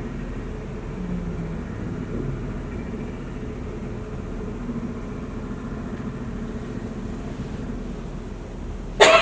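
Steady low background hum. A loud, sudden cough breaks in at the very end.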